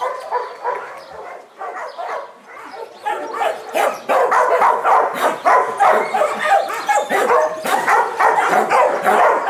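Shelter dogs in kennel runs barking, many short barks overlapping into a chorus that grows denser and louder about three seconds in.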